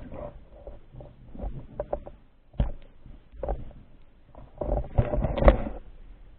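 Water sloshing and splashing in irregular bursts, with scattered knocks, and a busier spell of splashing about five seconds in.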